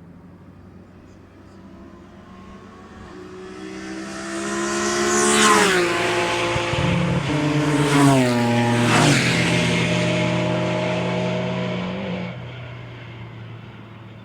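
Race cars passing at speed, loudest about five and eight seconds in, the engine pitch dropping sharply as each goes by, then fading away.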